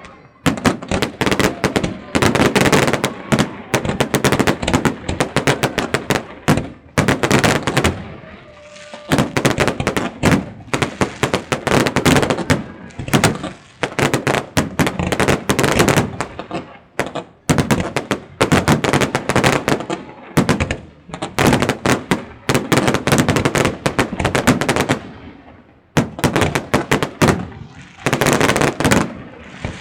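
Fireworks salute fired from close by: rapid volleys of bangs and crackling shell bursts in quick succession, with short lulls about eight seconds in and again near the end.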